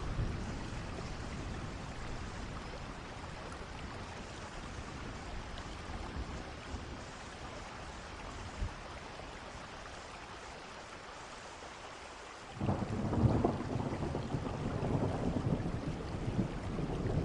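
Steady rain falling, with a loud rumble of thunder breaking in suddenly about twelve seconds in and rolling on.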